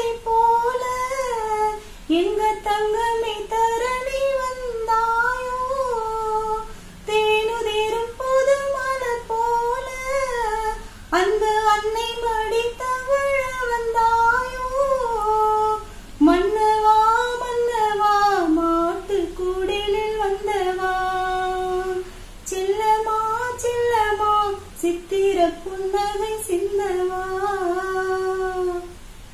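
A woman singing a slow melody solo, in held, gliding phrases of a few seconds each with short breaks for breath between them.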